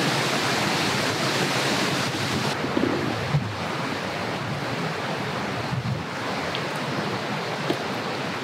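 A carbonated Hoppy-and-shochu highball fizzing in a glass, a steady hiss that turns duller about two and a half seconds in.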